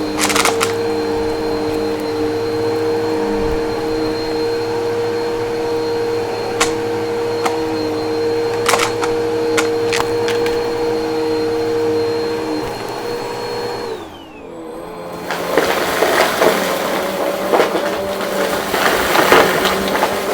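Vacuum cleaner motor running steadily with a high whine, with occasional sharp clicks of debris being picked up. About 14 seconds in the motor is switched off and winds down, falling in pitch. A second later a vacuum is running again with a different tone and a dense crackle of crunchy debris being sucked up.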